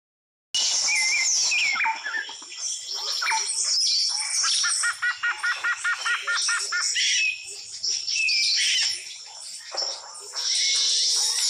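A chorus of many birds singing and calling at once, a dense mix of chirps and whistles that starts suddenly after a brief silence. About five seconds in, one bird gives a fast run of about ten evenly repeated notes.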